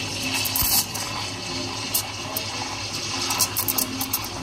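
La Marzocco espresso machine's steam wand steaming milk in a stainless steel pitcher: a steady hiss.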